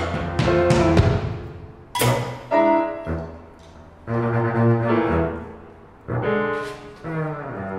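Jazz trio of piano, double bass and drums playing a slow passage in free time: chords struck at uneven intervals and left to ring, over low double bass notes, with light cymbal touches.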